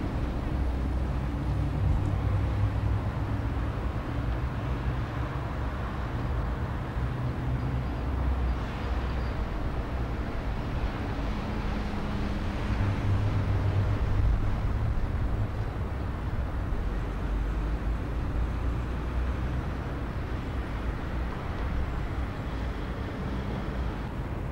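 Outdoor city ambience: a steady low rumble of road traffic, swelling a couple of times as vehicles pass.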